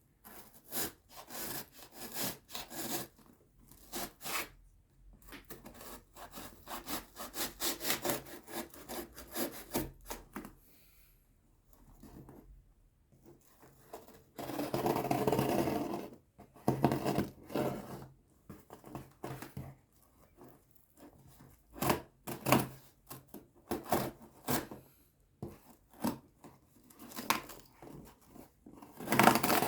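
Hands handling a cardboard keyboard box: bouts of rubbing and scraping strokes with small taps and clicks, and a longer sliding swish about halfway through.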